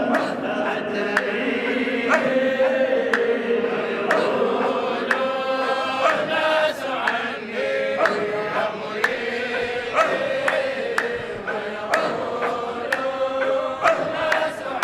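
A group of men chanting together in a Sufi dhikr, with a drum struck at a steady beat about once a second.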